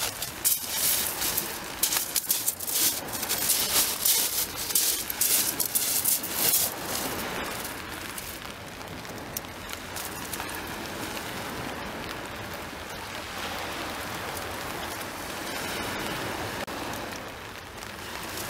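Rain falling close to the microphone: a dense crackle of sharp drops for the first seven seconds or so, then a steadier hiss.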